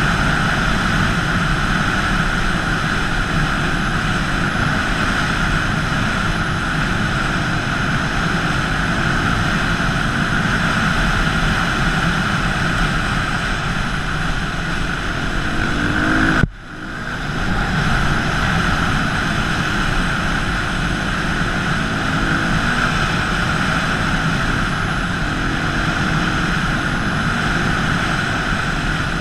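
Dirt bike engine running at speed under wind rush on a helmet-mounted camera, the engine note rising now and then with the throttle. The sound cuts out sharply for a moment about halfway through, then comes back.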